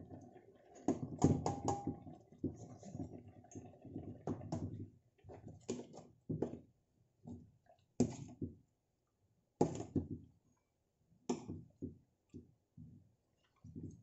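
Metal spoon clinking and scraping against a stainless steel pan while spooning coconut-milk sauce over simmering tilapia: irregular sharp clinks, with a quick run of several about a second in.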